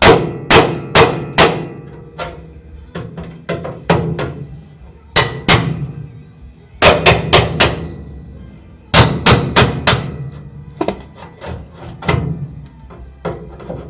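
Runs of three to five sharp hammer blows on car sheet metal, each ringing briefly, with short pauses between the runs: the old rocker panel is being knocked loose at its spot welds.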